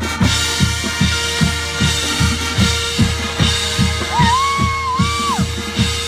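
Marching band music with brass, marching percussion and front-ensemble synthesizer. A steady beat of low drum hits runs at about four a second under a held tone. About four seconds in, a high lead line bends up, holds, and drops off.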